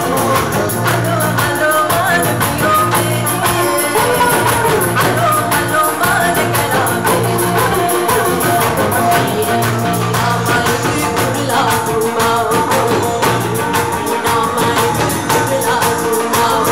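Live band playing an upbeat song with a steady drum-kit beat, electric bass and keyboard alongside sitar and Indian hand drums, with a singer's vocal line over the top.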